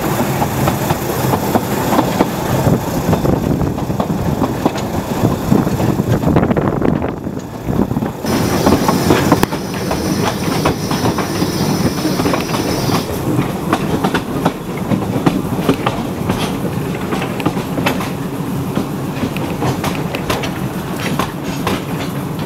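Narrow-gauge railway carriage running along the track, wheels rumbling and clicking steadily over the rail joints. A thin, high, steady squeal joins in for several seconds near the middle.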